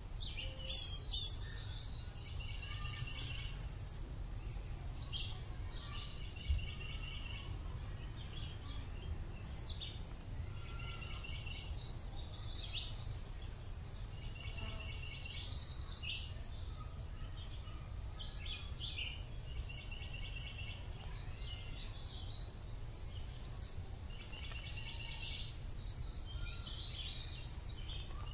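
Birds chirping outdoors in short, repeated trilled phrases every few seconds over a steady low rumble, with one louder high call about a second in.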